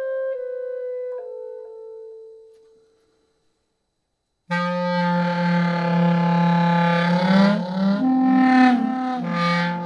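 Clarinet playing a few held notes stepping downward that fade away. After about a second and a half of silence, a dense layered clarinet texture starts abruptly: a steady low drone under higher tones that slide and waver, looped through a loop station.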